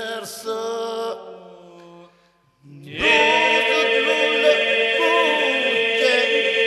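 Albanian Lab iso-polyphonic group singing a cappella. One phrase fades out about two seconds in. After a brief pause the voices come back in together at about three seconds, with a steady drone held under a leading voice that bends in pitch.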